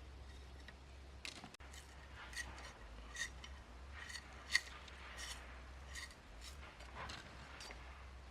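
A series of light, sharp clicks or snips, irregular and roughly one or two a second, with the loudest about four and a half seconds in.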